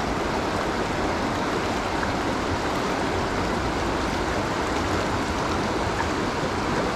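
Mountain river water rushing steadily over stones.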